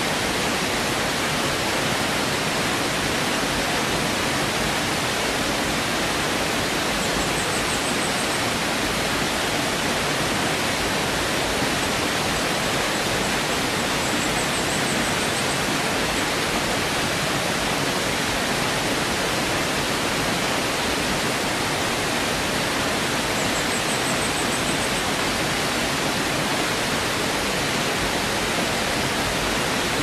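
Shallow rocky stream rushing over stones and small cascades: a steady, even rush of water. A faint high-pitched trill sounds three times.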